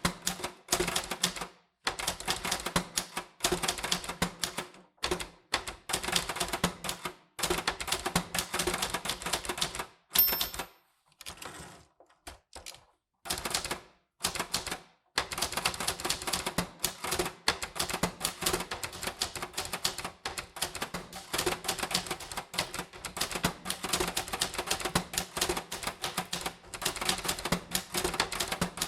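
Manual typewriter typing in quick runs of key strikes with short pauses between words. About ten seconds in there is a brief high ring, then a longer pause before the typing resumes.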